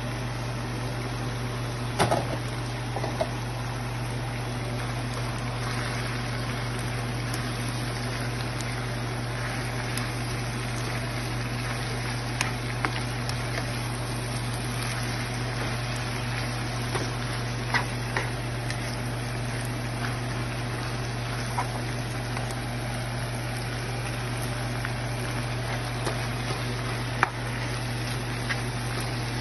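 Onion, pepper and saltfish sizzling in a frying pan as a pile of raw spinach is stirred in, a steady hiss over a low hum. A few sharp clicks of the slotted spoon against the pan, the loudest about two seconds in.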